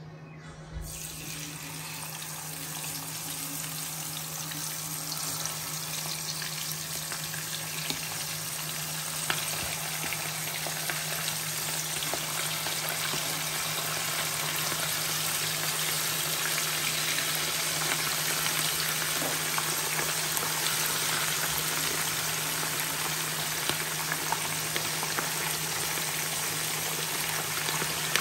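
Small whole fish frying in hot oil in a pan: a dense sizzle that starts suddenly about a second in as the fish go into the oil and grows steadily louder, with a few sharp pops. A steady low hum runs beneath it.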